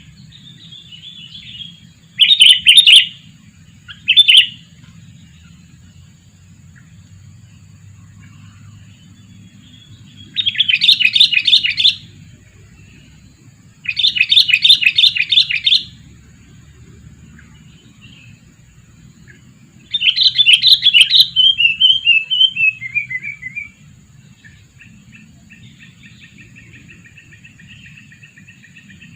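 Sooty-headed bulbul calling in five loud bursts of rapid chattering notes, the last trailing off in a falling run of notes, with fainter calling in between.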